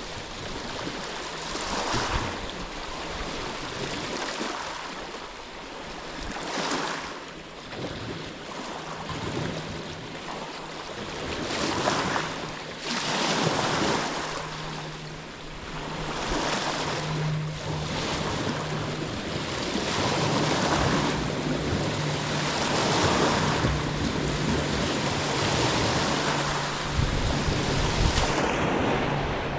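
Waves breaking and washing on a shore, the surf swelling and falling every second or two, with wind buffeting the microphone. A low steady hum comes in about a third of the way through and holds.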